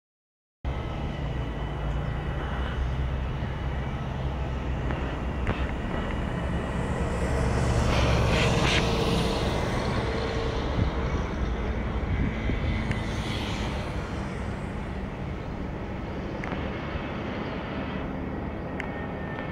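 Airbus A320 jet engines on approach, a steady rumble mixed with the hiss and buffeting of strong wind on the microphone, swelling a little about eight seconds in. It starts after a brief silence.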